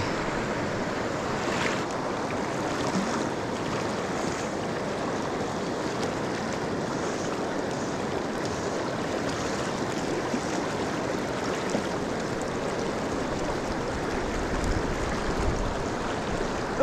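Mountain stream rushing steadily.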